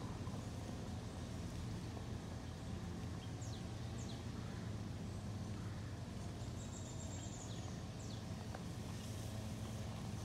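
Outdoor ambience: a steady low hum, with a few short, high, falling chirps about three and a half seconds in and again near eight seconds, and a brief high thin tone around seven seconds.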